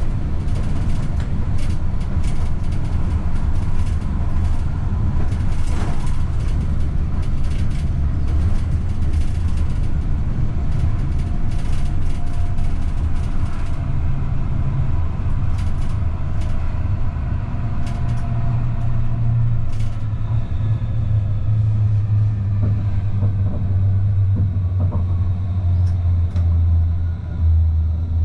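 Stadtbahn light-rail train running on the track, heard from the driver's cab: a steady low rumble with sharp clicks over the rails in the first half. From about the middle on, several motor tones fall slowly in pitch as the train slows for a stop.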